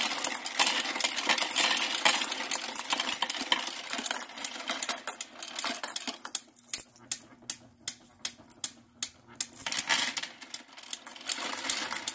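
Royal Sovereign Quick Sort electric coin sorter running, coins clattering through it and dropping into the paper coin wrappers. The clatter thins to scattered single clicks about halfway through, then thickens again near the end.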